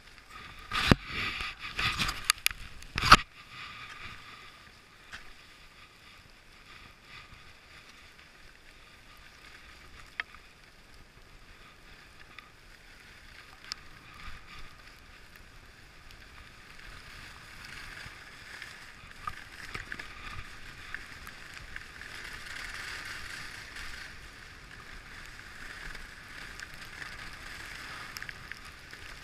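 Fischer skis hissing and scraping over groomed snow, getting louder in the second half. There are a few sharp knocks and clatter about one to three seconds in.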